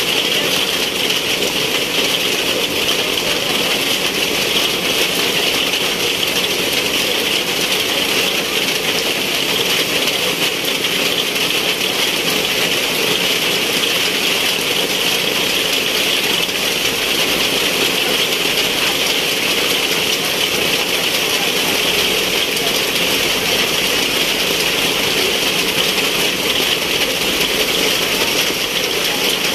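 Heavy rain pouring steadily onto a paved open-air plaza and its rows of tables, a continuous even downpour.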